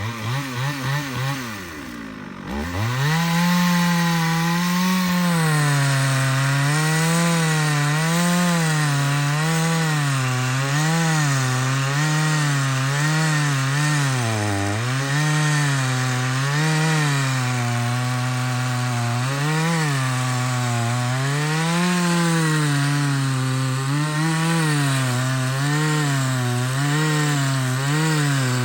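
Chainsaw cutting through a large hardwood trunk. It revs and dips briefly at first, then runs under load throughout, its engine pitch sagging and recovering over and over as the chain bites into the wood.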